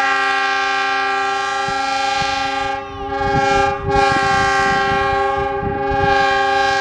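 Locomotive air horn sounding a loud, steady chord of several tones in long blasts, with a brief break about three seconds in.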